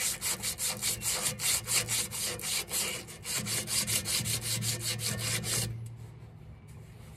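An abrasive strip pulled back and forth around a steel axle shaft, shoeshine style, in quick rasping strokes several a second, cleaning weathering off the shaft so the wheel hub will slide on; the rubbing stops about a second and a half before the end.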